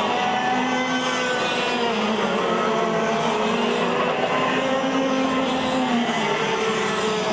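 Several 125cc two-stroke TAG racing kart engines running hard together, their overlapping high-pitched notes rising and falling as the karts come off and onto the throttle.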